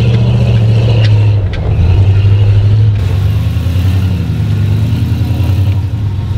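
Jeep YJ Wrangler's engine running off-road, a steady low note that changes about three seconds in, then rises and falls slightly as the Jeep is driven.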